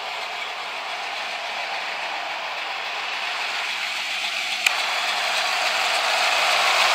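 Ford 5.0 L V8 of a 1988 Mustang GT idling, a steady mechanical running sound that grows louder near the end. One sharp click comes about four and a half seconds in.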